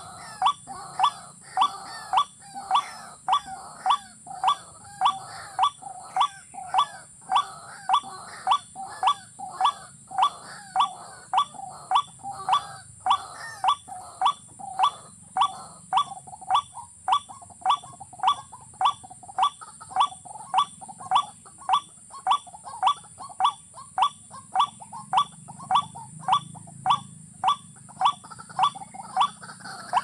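Watercock call: short, rising notes repeated evenly, about three every two seconds, in one unbroken series.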